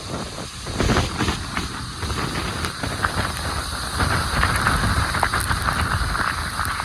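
Hurricane-force wind blowing hard with rain, a dense rushing noise with a heavy low rumble. It surges about a second in and stays loud.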